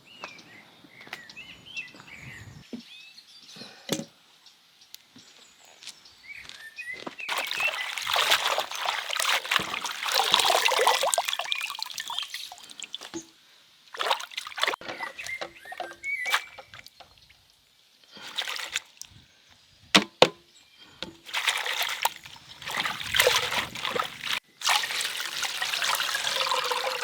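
Water pouring and splashing in several spells of a few seconds each, with short quiet gaps and a few sharp knocks between them.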